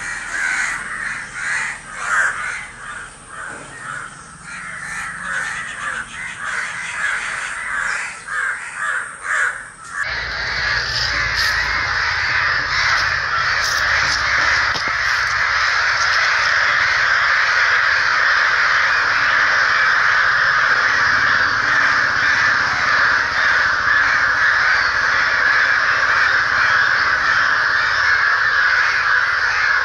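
A flock of crows cawing in alarm over a fallen, injured crow. For about the first ten seconds the harsh caws come separately and overlap loosely, then the sound switches abruptly to a dense, unbroken chorus of many crows calling at once.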